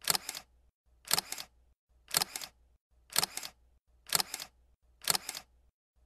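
Camera shutter sound effect repeating about once a second, each a quick double click.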